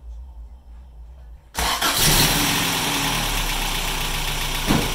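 Toyota 22RE 2.4-litre four-cylinder fuel-injected engine starting about a second and a half in, flaring up briefly, then settling into a steady idle. A short thump comes near the end.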